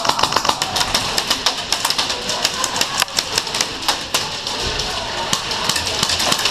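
Airsoft guns firing: a rapid string of sharp shots at the start, then scattered single shots and short bursts.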